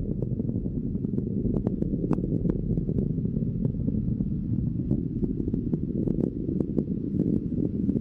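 Low rumble of a Chinese launch rocket's engines in powered ascent, with frequent sharp crackles running through it.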